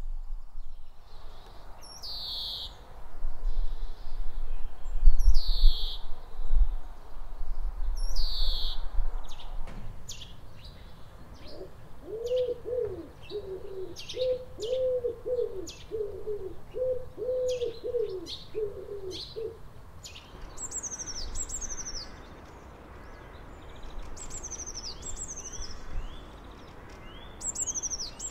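Great spotted woodpecker giving three sharp single calls a few seconds apart. Then a common wood pigeon cooing its repeated five-note phrase for several seconds, with small birds chirping faintly behind. In the last stretch a blue tit sings thin high notes and quick short trills.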